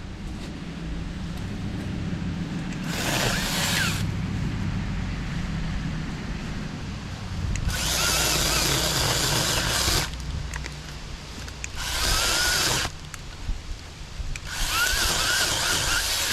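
Saker 20-volt cordless mini chainsaw cutting into a limb in four bursts of one to two seconds each. Its electric motor bogs down a little under the load.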